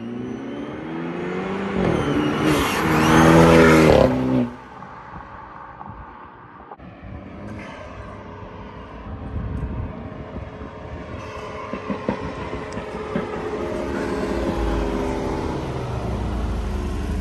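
BMW F30 328i's N26 turbocharged four-cylinder, fitted with an open aftermarket intake and turbo inlet, accelerating hard. Its pitch climbs under a loud rush of intake and turbo noise, then cuts off suddenly about four seconds in as the throttle lifts. After that the engine runs on more quietly and slowly builds again.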